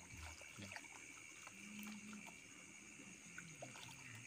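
Very faint, scattered small splashes and ticks of fish feeding at the water's surface, close to near silence.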